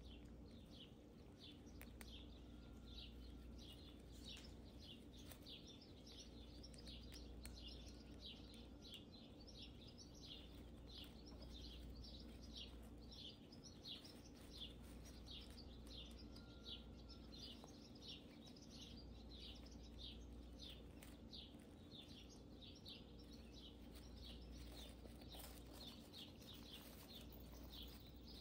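Faint high chirps repeating steadily, about two a second, over a low steady hum.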